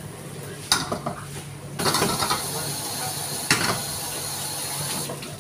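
A metal pan knocks against the gas range grate, then a stir-fry sizzles in the hot pan for about three seconds, with another clank partway through.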